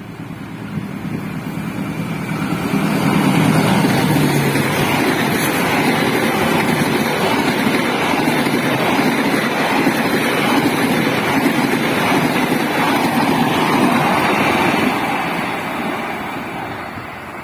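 A train passing close by at speed: a rumble of wheels on the rails that builds over the first few seconds, holds steady for about twelve seconds, then fades. A low drone sounds under it in the first few seconds.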